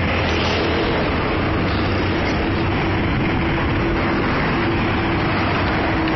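Steady street traffic noise, with a continuous low hum and a faint held tone running through it.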